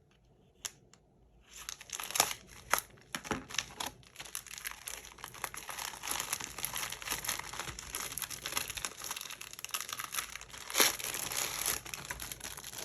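Packaging crinkling and tearing as a mail package is opened and unwrapped by hand. It starts about a second and a half in and runs on continuously, with a few sharper rips and crackles.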